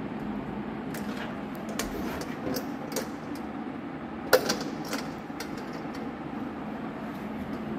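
Scattered light clicks and knocks from a steel tasha drum being handled and turned over, its metal shell and rim knocking under the hands, with one sharper knock about four seconds in, over a steady low hum.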